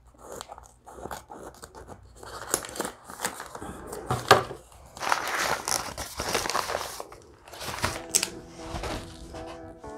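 Scissors snipping a paper plant wrap, then the paper crinkling and rustling as it is torn and pulled off the pot, with one sharp crackle midway. Background music comes in near the end.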